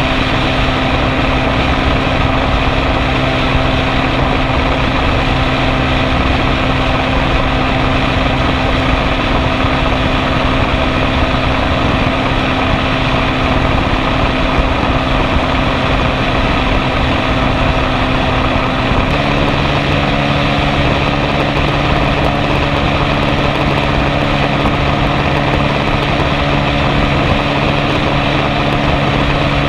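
Honda RS150R's single-cylinder engine running steadily at high revs, about 8,000 rpm at a 110 km/h cruise. About two-thirds of the way through its pitch steps up slightly as the revs rise to about 8,700 rpm at 120 km/h.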